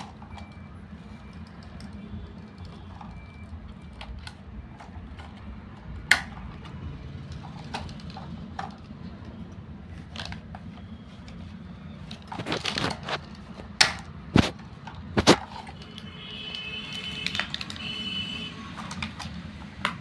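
Sharp plastic clicks and knocks as a toy remote-control crane truck and its controller are handled, scattered irregularly over a steady low hum. Near the end there is a brief high warbling tone.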